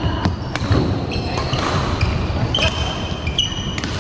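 Badminton play in a large indoor hall: several sharp racket-on-shuttlecock hits and short squeaks of court shoes on the floor, over a steady hall rumble.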